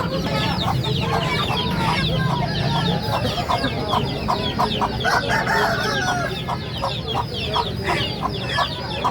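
A flock of chickens clucking, with many short chirping calls overlapping throughout.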